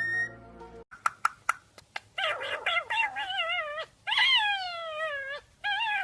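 A cockatiel's whistled note ends within the first second. After a few clicks, a male rose-ringed (Indian ringneck) parakeet gives a run of high, wavering calls that slide down in pitch, with a short break near the end.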